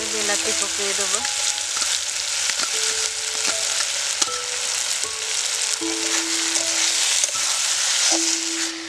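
Onion and spice masala frying hard in a metal kadai, a loud steady sizzle, with a metal spatula scraping and stirring through it and tomato wedges tipped in partway through. Soft background music with held notes runs underneath.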